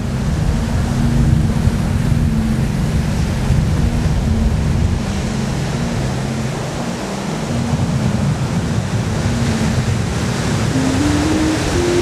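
Ocean surf washing and breaking, a steady, loud rush, with background music carrying a low stepped melody that climbs near the end.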